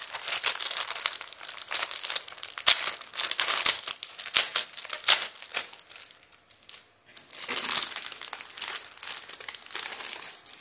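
A thin plastic packet holding foil balloons crinkling and rustling as it is handled and opened by hand, with a short lull about two-thirds of the way through before the crinkling starts again.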